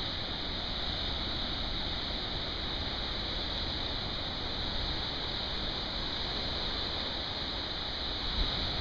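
Heavy ocean surf breaking and churning against a rocky shore: a steady rush of water with no separate crashes standing out.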